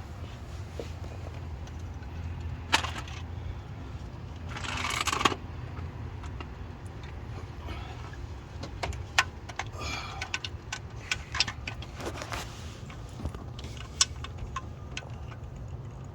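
Scattered sharp clicks and clinks of hand tools and metal parts being handled during engine disassembly, with a short scraping rustle about five seconds in, over a steady low hum.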